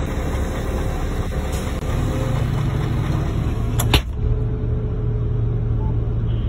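Heavy diesel engines of an excavator and a dump truck running under load as the excavator bucket pushes the bogged-down truck from behind. The steady low drone grows stronger about two seconds in, and a single sharp knock comes about four seconds in.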